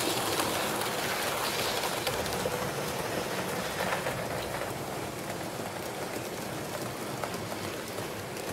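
HO scale model train running along the track: a steady hiss with fine, rapid clicking of small wheels on rail, a little quieter toward the end.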